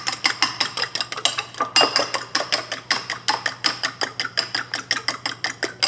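Two eggs being beaten with a fork in a ceramic bowl: the fork clicks against the bowl in a fast, even rhythm, about seven or eight strokes a second.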